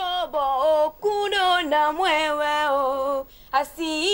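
A single voice singing a song unaccompanied: long held phrases, each sliding down in pitch, with short pauses between them.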